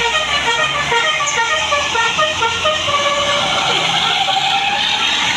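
Basuri 'telolet' multi-tone bus horn playing a quick tune of short notes that change pitch, ending on a longer held note a little before the end.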